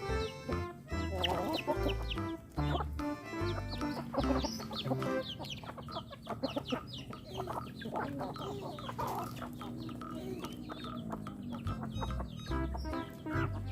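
Free-range chickens clucking, many short calls one after another, over background music with a steady low bass line.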